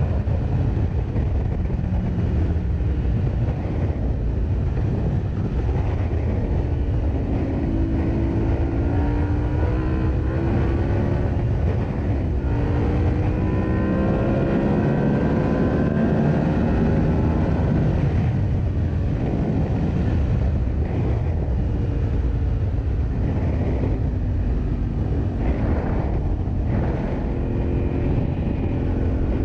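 Yamaha motorcycle engine under way, its pitch climbing and then dropping again several times as it runs up through the revs and changes gear, over a heavy low rumble.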